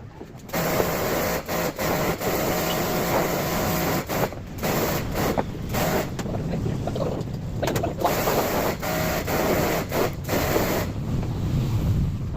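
Pressure washer spraying water: a steady hissing spray over a running motor hum, cutting out for a moment many times.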